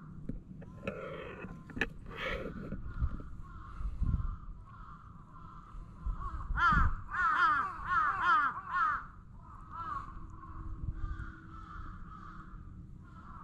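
Crows cawing: a quick run of harsh, falling caws about halfway through, with a few scattered calls before and after, over a steady high-pitched drone.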